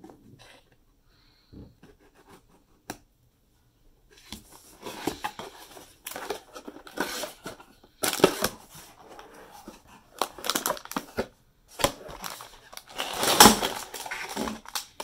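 A small cardboard LEGO box being opened. It starts with a few faint clicks and scrapes as a hobby knife slits the tape seals. From about four seconds in there are repeated bursts of cardboard scraping and crinkling of packaging as the box flaps are opened and the contents are pulled out, loudest near the end.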